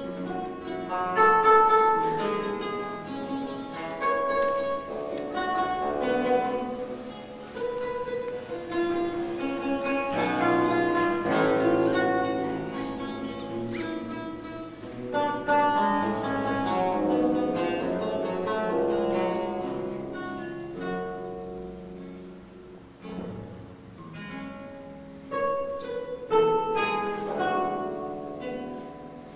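Solo theorbo playing: a flow of plucked single notes and chords, each note ringing on.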